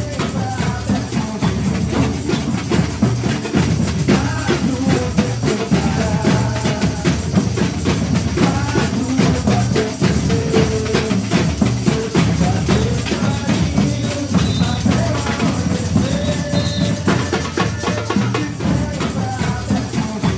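Brazilian carnival percussion group playing live: surdo bass drums and caixa snare drums beat a steady, dense carnival rhythm, with a melody line above the drums.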